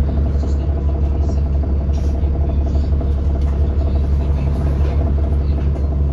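Steady low drone of an Alexander Dennis Enviro400 Trident double-decker bus running, heard from on board, with faint scattered rattles.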